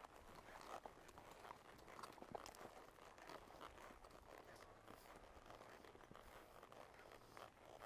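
Faint, soft crunches of a horse's hooves walking on the trail, many small steps close together.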